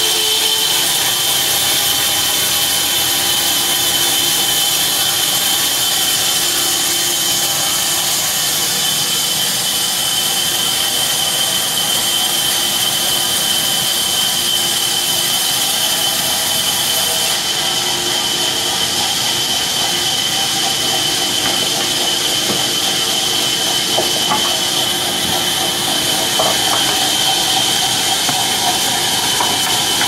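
Large vertical sawmill band saw running steadily with a constant high whine, its blade cutting through a hardwood slab on the log carriage.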